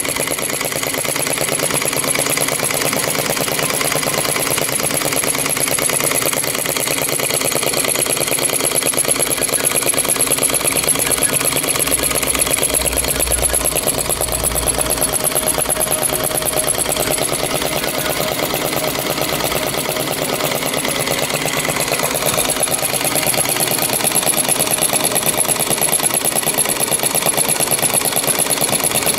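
Small flame-eater (flame-licker vacuum) model engine running steadily on a pure hydrogen flame, a rapid, even mechanical clatter.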